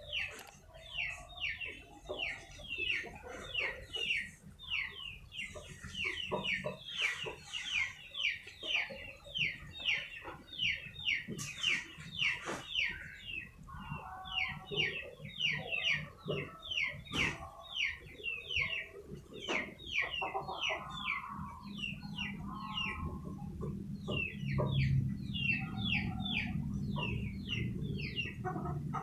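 Chicks peeping: a fast run of short, high, falling peeps, about three or four a second, with a few lower chicken calls in between. A low steady hum comes in about two-thirds of the way through.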